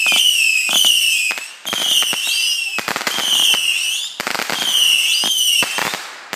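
A volley of whistling fireworks: about five shrill whistles, about a second apart, each falling slightly in pitch and ending in sharp bangs.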